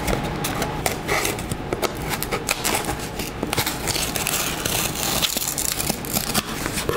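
Knife blade slitting the packing tape on a cardboard box: irregular scraping and crackling of the blade through tape and cardboard, with rustling of the box as it is handled.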